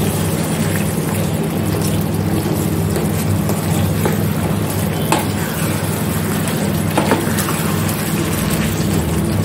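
Wooden spatula stirring and scraping thick chicken in black masala in a steel frying pan, with a soft sizzle and a few knocks of the spatula on the pan, over a steady low hum.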